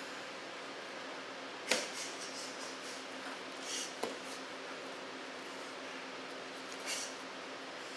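Movement sounds of a karate test over a steady room hum: a sharp snap about two seconds in, the loudest sound, a smaller click a couple of seconds later, and two short hissing bursts.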